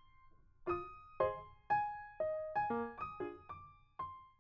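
Background music: a gentle keyboard melody of single struck notes, about two a second, each left to fade out.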